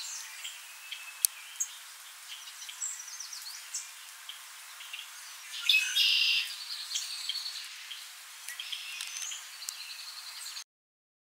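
Songbirds singing and calling: many short high chirps and trills, with two sharp clicks a little over a second in and a louder buzzy trill about six seconds in. The sound cuts off abruptly near the end.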